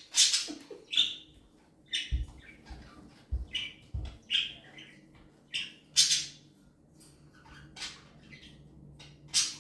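A pet parrot giving a run of short, harsh squawks, one every half second to a second, with a few dull thumps about two to four seconds in.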